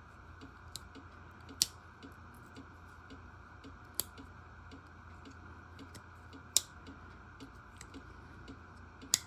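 Blades of a Schrade Old Timer slip-joint pocketknife being opened and closed, each one snapping into place with a sharp click, about five loud clicks with fainter ticks between. The crisp snap shows firm backspring tension on every blade.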